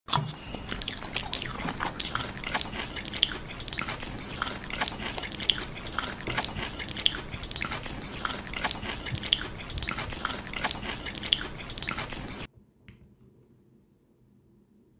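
Crunchy chewing and biting, with many small crackling clicks and a louder crunch about once a second, stopping abruptly about three-quarters of the way through.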